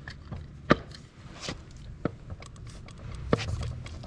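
Torque converter being turned by hand in a Turbo 400 transmission's bell housing, giving four sharp metallic clicks as it rotates to line its splines and keyways up with the front pump, over a low steady hum.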